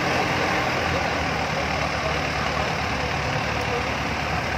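Kubota DC70 combine harvester's diesel engine running steadily as the machine is driven.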